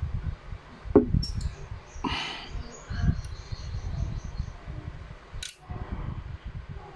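Small clicks and a short scrape of metal and polymer pistol parts as a Glock 17 Gen 4 frame is worked with a fork, the sharpest click about a second in. A steady low rumble runs underneath.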